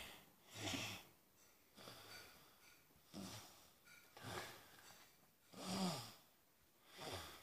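A child breathing noisily in quick, faint snore-like breaths, about one a second, as if asleep.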